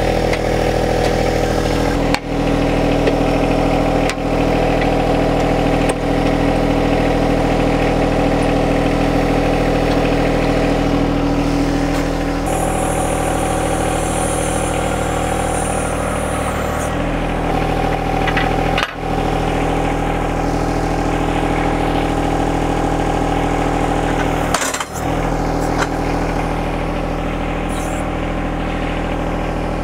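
A John Deere 1025R's three-cylinder diesel engine running steadily while the backhoe's hydraulics are worked. Its note shifts a couple of times, and a high hiss is heard for a few seconds in the middle. Brief dips break the sound several times.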